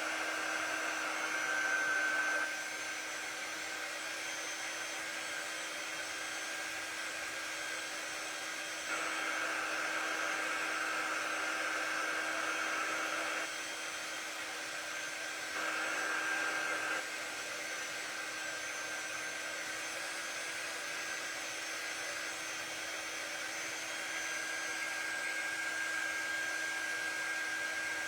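Small handheld craft quick-dry tool, a gentler blower than a hair dryer, running steadily with a high whine while it dries acrylic paint on wooden cutouts. It grows louder for a few seconds at a time, several times over.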